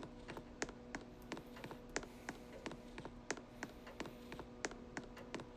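Rapid, even clicking, about three clicks a second, over a faint steady hum, typical of a running ceiling fan ticking once each turn.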